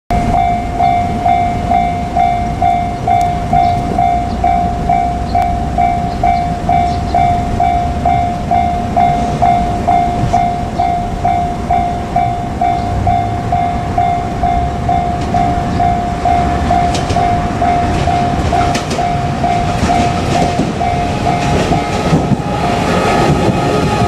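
Japanese level-crossing warning bell ringing steadily, a repeated electronic clang about twice a second. In the last couple of seconds a JR Kyushu 817-series electric train reaches the crossing and passes, its wheels clattering over the rails under the bell.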